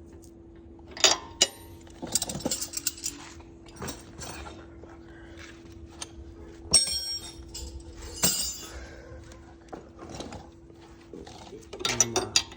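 Metal hand tools clinking and rattling as they are handled, with several sharp clinks at irregular intervals and short stretches of rattling in between.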